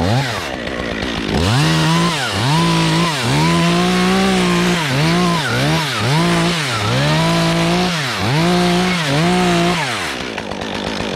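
Stihl MS 201 TC top-handle two-stroke chainsaw running, its throttle opened and eased off again and again so the engine note keeps dropping and climbing back. Near the end it falls back to idle.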